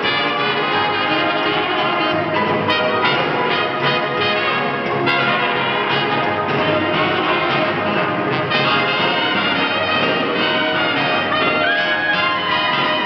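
Swing band playing an instrumental passage live, carried by the brass section: trumpets and trombone over saxophones.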